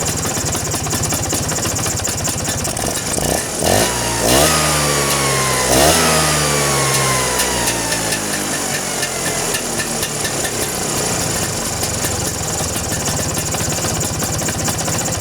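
Vespa two-stroke scooter engine running, blipped twice about four and six seconds in, then easing back down to idle. The carburettor mounting nuts have just been tightened, and the squeak ('cuit') that the loose nuts caused is gone.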